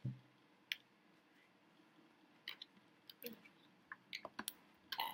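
Scattered light clicks and taps, about seven in all and irregularly spaced, from a plastic fashion doll and its box packaging being handled.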